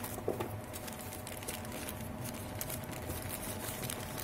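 Plastic packaging bag and cardboard box rustling and crinkling as they are handled, with light irregular clicks and taps.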